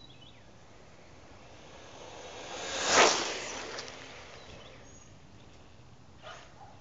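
A 1/10 scale electric RC buggy with a Turnigy 8.5-turn brushless motor speeding past at full throttle. It builds up from about a second and a half in, peaks sharply about three seconds in, then fades away.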